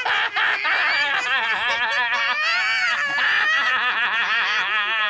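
High-pitched cartoon-style character voices laughing and giggling without a break.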